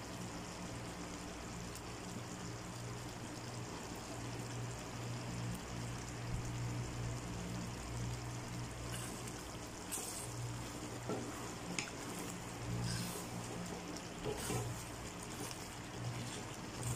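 Eggplant in coconut-milk gravy simmering in a wok: a faint, steady bubbling over a low hum, with a few light clicks and taps from about halfway on.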